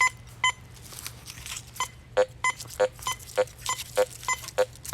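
Teknetics Patriot metal detector giving short repeated target-ID beeps as the coil sweeps back and forth over buried test targets. Higher-pitched beeps alternate with lower-pitched ones from about two seconds in.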